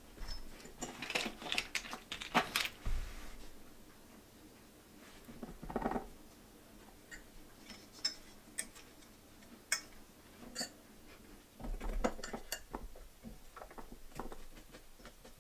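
Steel tubes of an over-bed table frame clinking and knocking together as they are handled and fitted, in irregular clusters of clicks, clanks and taps.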